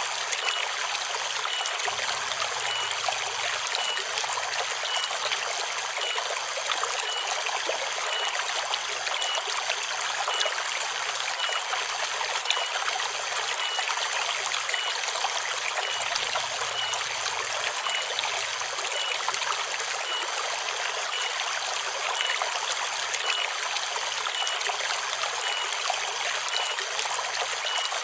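Forest river water flowing and trickling steadily over rocks, with a faint high tone repeating about twice a second.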